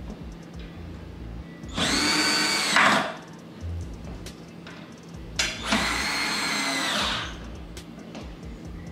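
Cordless drill driving screws into a flat-pack nightstand panel: two runs of the motor, one to two seconds each and about three seconds apart, each a steady whine at one pitch.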